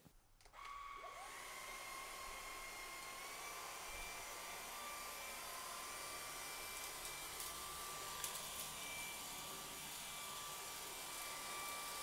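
Kyvol V20 cordless stick vacuum's 300 W brushless motor starting about half a second in, its whine rising in pitch and settling into a steady high whine over a hiss as the motorized floor brush runs over a hard floor. Fairly quiet for a vacuum.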